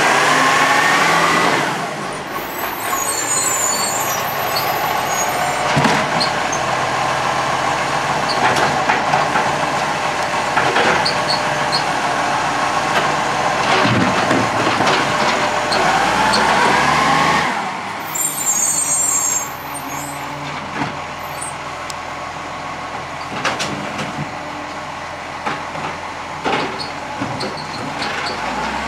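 Side-loader garbage truck's diesel engine revs up twice, at the start and about 16 seconds in, to power the hydraulic bin-lifting arm. Each rev is followed by a sharp hiss of air from the brakes. Scattered knocks come from the arm and the bin, with the engine running steadily in between.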